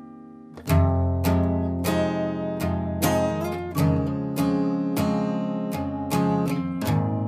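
Background music: strummed acoustic guitar, the strumming picking up again a little under a second in with chords about every half second.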